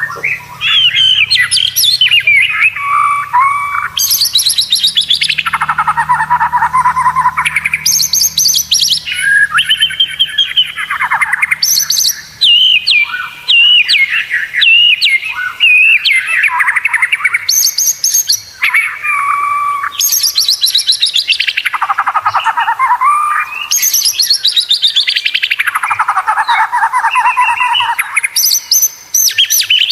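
White-rumped shama (murai batu) singing without pause: a loud, varied string of whistled phrases and rapid trills, several of them sweeping down from high to low every few seconds.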